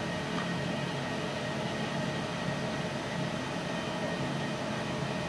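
1977 Sharp Carousel microwave oven running on full power: a steady electrical hum with a fan-like hiss.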